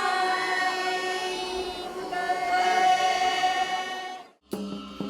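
Group of voices chanting a slow traditional song in unison, holding long notes. It cuts off abruptly about four seconds in, and near the end sharp rhythmic percussion strikes with a rattle begin.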